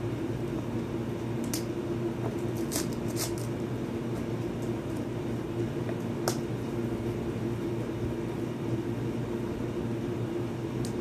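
A steady low hum with a few short clicks and taps from hands working at a shrink-wrapped cardboard phone box.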